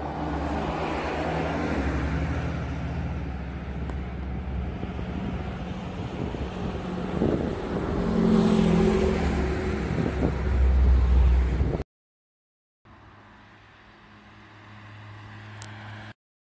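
Road traffic running past on a highway beside the walkway: a steady rumble and engine hum that swells twice as vehicles pass. It cuts off abruptly about twelve seconds in. After a short silence a quieter engine hum slowly grows as a vehicle approaches on a street, then cuts off.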